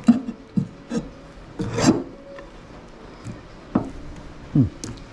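Kitchen knife cutting and scraping through a whole scorpionfish on a cutting board: a string of short, irregular knocks and scrapes, the longest and loudest just before two seconds in.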